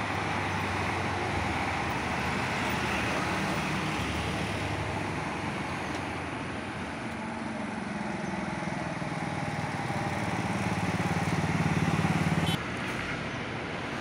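Steady traffic noise from cars and trucks on a toll expressway. One vehicle's engine hum grows louder near the end, then cuts off suddenly.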